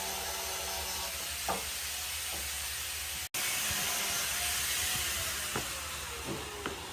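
Workshop machine noise: a steady hiss with a few light knocks. After an abrupt cut, a tone falls slowly in pitch, like a motor winding down.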